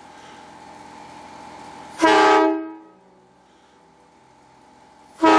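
Nathan K5LA five-chime train horn blown in two short blasts, each a chord of several tones sounding together: one about two seconds in, the other starting near the end. The horn is fed about 90 psi through an air nozzle, short of the pressure it needs.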